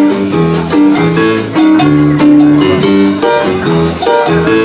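Jazz band playing instrumentally: piano, plucked double bass walking beneath, and drums and hand percussion keeping time.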